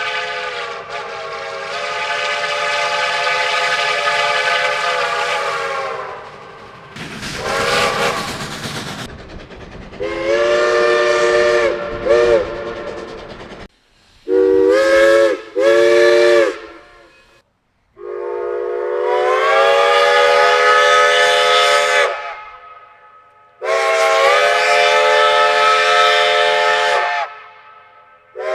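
Steam locomotive chime whistle blowing a series of blasts: a long blast, a burst of steam hiss, a broken blast, two short blasts, then two long blasts. The chord slides up in pitch as each blast opens.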